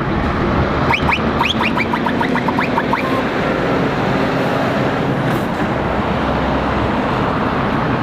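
Scania R520 truck's V8 diesel engine running as the truck drives past, with steady tyre and road noise. About a second in, a quick run of short high chirps, about four or five a second, lasting roughly two seconds.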